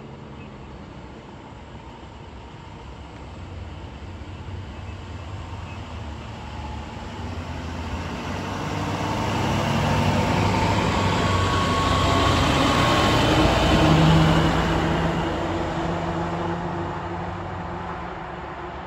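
Fire trucks drive past close by, their diesel engines and tyres swelling to a peak about two-thirds of the way through, then fading as they move away.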